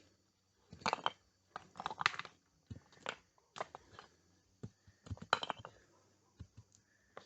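Large stones being handled and set down, clacking and knocking against each other in an irregular string of sharp knocks, a few with a dull thud.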